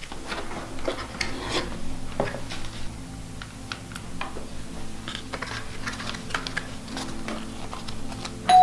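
Paper plates and a cardboard pizza box being handled while pizza is served: light rubbing, scraping and scattered small clicks and taps. A doorbell chime starts right at the end.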